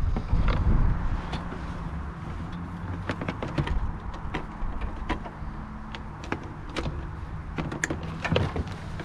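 Knocks and clatter of discarded household items and cords being handled and pulled from a pile of junk, over a steady low hum. The knocks are irregular, with a cluster near the end.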